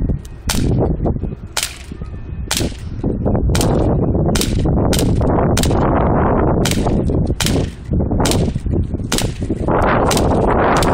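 H&K USP CO2 pistol firing a string of about a dozen sharp pops, roughly one a second. Wind buffets the microphone under the shots.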